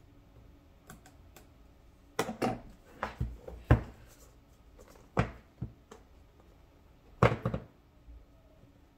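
Cardboard product box being handled and opened: scattered sharp taps and knocks in short clusters, with fainter clicks in between.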